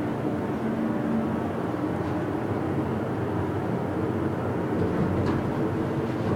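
Dover Impulse hydraulic elevator running, a steady hum of its machinery and cab travel noise, with a couple of faint ticks near the end.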